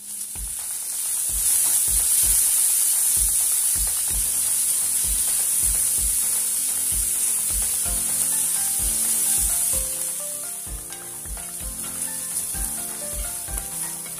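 Diced onions frying in an aluminium wok, a steady loud sizzle that builds over the first second or so, stirred with a wooden spatula. Background music with a steady beat plays underneath, its melody clearer in the second half.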